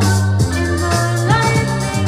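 Music with a held bass, shifting melodic notes and a shaker keeping a steady rhythm.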